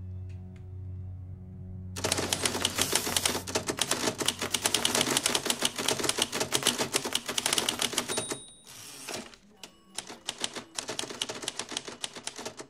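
Manual typewriter being typed on rapidly, a dense run of key clacks. About eight seconds in, a short bell rings and the carriage is returned with a brief sliding rush, then the fast typing starts again. Sustained music plays in the first two seconds before the typing begins.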